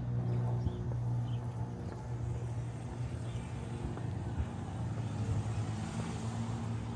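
City street traffic: a steady low engine hum, with a passing car's tyre hiss swelling about five to six seconds in. A few faint bird chirps sound in the first second or so.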